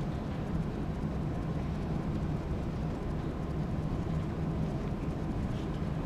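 Steady low rumble of room noise, with no music or applause.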